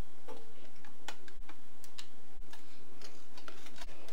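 Spoon scraping and tapping against a glass mixing bowl while scooping out thick chocolate brownie batter: a string of short, irregular clicks and taps, a few each second.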